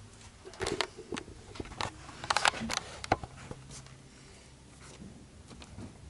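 A quick run of sharp clicks and light clatter from small metal tools and engine parts being handled on a workbench, in the first three seconds or so, then only a faint hum.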